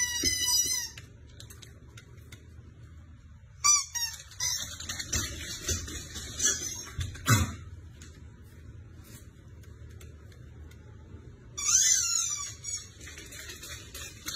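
High squealing squeaks from a husky puppy at play, in separate bursts of about a second: at the start, around four seconds in, and again around twelve seconds in. A dull low thump comes about seven seconds in.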